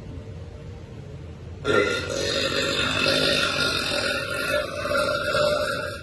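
A woman's long, loud burp that starts suddenly a little under two seconds in and runs for about four seconds.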